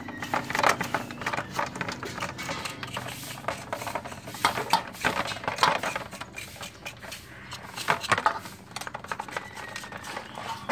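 Kitchen knife cutting raw meat in an aluminium basin: a run of irregular clicks and scrapes as the blade works through the meat and knocks against the metal.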